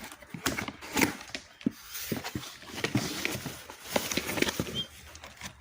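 Irregular knocks, scrapes and rustles of a cardboard box of live young pigeons being opened and handled.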